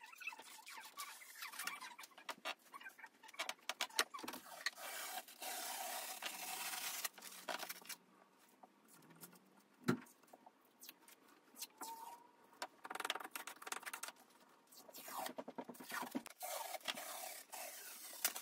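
Wallpaper scraper scraping at a wall and damp wallpaper tearing away, in irregular scratches and rips, with a longer tearing stretch about five seconds in and one sharp knock about ten seconds in.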